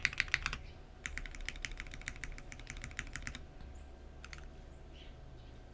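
Mechanical keyboard with lubed Cherry MX Black linear switches in an aluminum plate and GMK keycaps, typed on in quick runs of keystrokes: a short run at the start, a longer run of about two seconds after a brief pause, then two last strokes.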